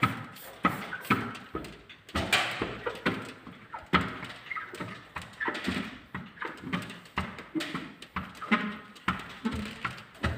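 Squeegee stroked repeatedly across wet window tint film on glass: an uneven run of short squeaks and scrapes, about two strokes a second.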